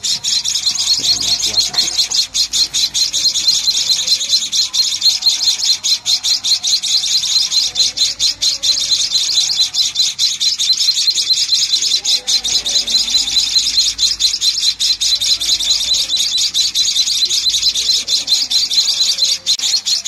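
Nestling birds chirping continuously: a dense, high-pitched chatter of rapid calls that never lets up.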